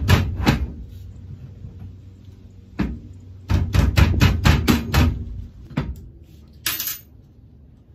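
Metal tree stand parts being handled and knocked against each other. There are a few sharp knocks and clanks at the start, then a quick run of about eight in the middle, and a short scrape near the end.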